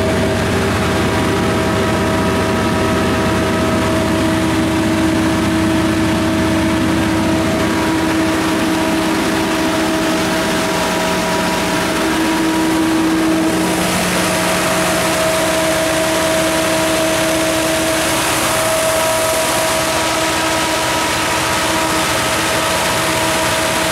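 John Deere 4045 four-cylinder turbodiesel of a 129 kW generator set running at a constant speed, a steady drone with a few held tones. About halfway through, a brighter hiss grows louder over the top.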